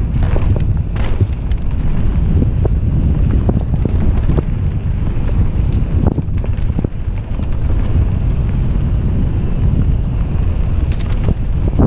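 Wind buffeting the microphone on a bike riding a rough dirt trail, with scattered irregular knocks and rattles from the bumps.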